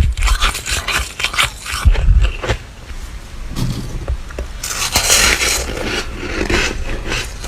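Flaky freezer frost being scraped and crunched close up: a quick run of short crackly scrapes with low thuds near the start and about two seconds in, then a longer rough scrape in the second half.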